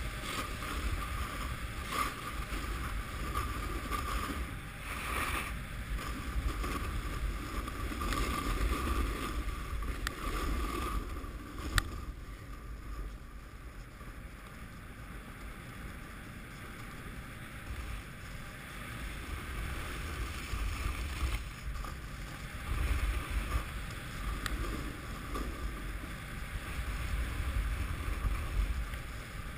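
Snowboard sliding and carving over snow, a steady hiss, with wind buffeting the microphone. It eases off in the middle and picks up again later, with one sharp click about twelve seconds in.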